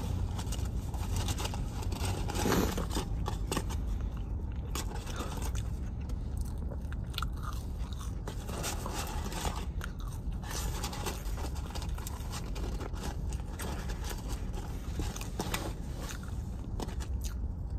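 A person chewing and crunching fried fast food close to the mic, with many small crisp crunches throughout. A steady low hum runs underneath.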